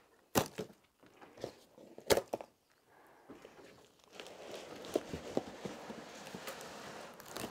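Two sharp snaps about a second and a half apart as plastic packing straps around a cardboard box are cut with a knife, then quieter rustling and crackling of hands and packing tape on the cardboard.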